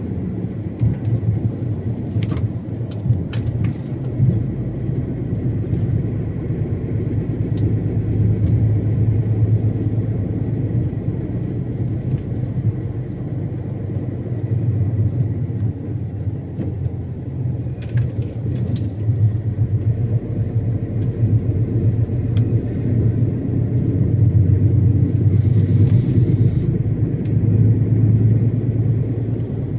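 Iveco Stralis 570 XP truck under way: the steady low drone of its diesel engine with road and tyre noise, swelling a little in the last third, and a few light clicks.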